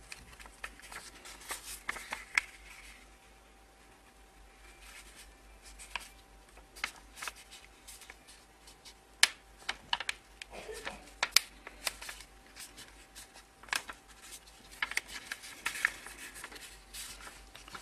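A sheet of paper being folded and creased by hand: irregular crisp crackles and rustles, with a few sharper snaps of the paper near the middle.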